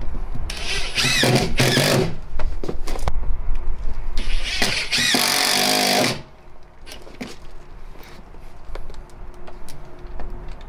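Ridgid cordless drill driving screws into the frame of an RV water heater door. The motor whines up and down in two spells, the second starting about four seconds in and lasting nearly two seconds. Small clicks of handling follow.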